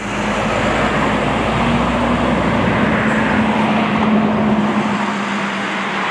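Steady motorway traffic noise: the rush of tyres and engines from passing cars and lorries, with a steady hum. A deep low rumble drops away about halfway through, while the rush goes on.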